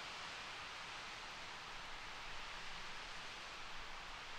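RS-25 liquid-hydrogen rocket engine firing steadily on its test stand, heard from a distance as an even rushing hiss.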